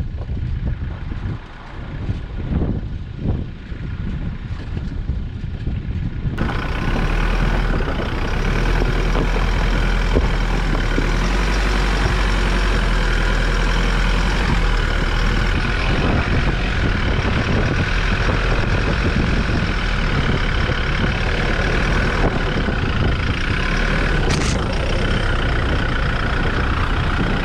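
A 4x4 vehicle driving a dirt trail, with engine and tyre noise. For the first six seconds the rumble is uneven; then it changes abruptly to a steady, louder drive with a deep hum.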